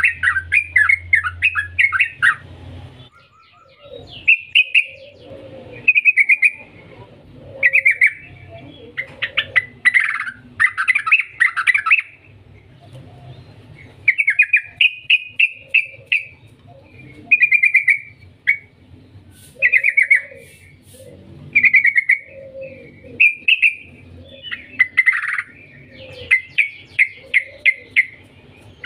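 Caged yellow-vented bulbul (trucukan) in full song: repeated bubbly, chattering phrases of rapid warbled notes, each about one to two seconds long with short pauses between.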